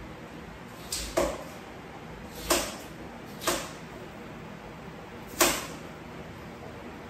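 Water spinach stems being snapped by hand, five short sharp snaps at uneven intervals: two close together about a second in, then single ones, the last the loudest.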